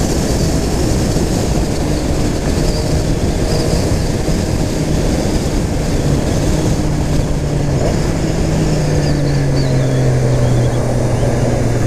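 Triumph Street Triple 765 RS's inline three-cylinder engine running at road speed under heavy wind rush, its note slowly falling as the bike slows down.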